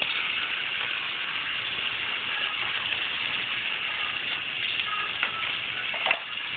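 Battery-powered toy train motors whirring steadily as the engines run along plastic track. There are light clicks about five seconds in and a louder plastic knock about six seconds in.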